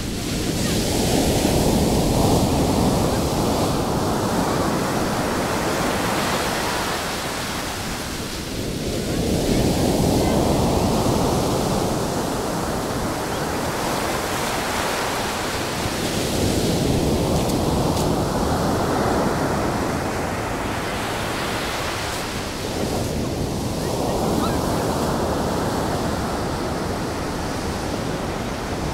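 Heavy surf from a stormy sea: big waves breaking and washing up a sandy beach in a continuous roar. It swells and ebbs in slow surges about seven seconds apart, four in all.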